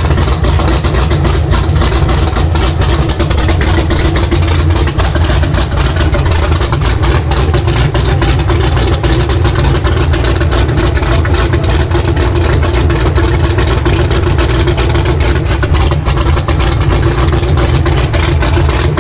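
Supercharged, big-cammed ZL1 Camaro V8 idling loud and choppy on open headers, a steady rapid run of exhaust pulses, during its first run after being fired up.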